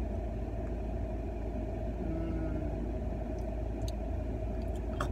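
Car air-conditioning fan blowing steadily inside the cabin over the low rumble of the idling engine, with a few faint clicks in the second half.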